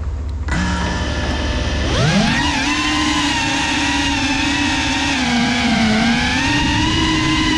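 FPV quadcopter's motors and propellers, heard from the drone's own camera. They start spinning about half a second in, rise quickly in pitch about two seconds in as the drone lifts off, then settle into a steady whine that wavers slightly in pitch as it climbs.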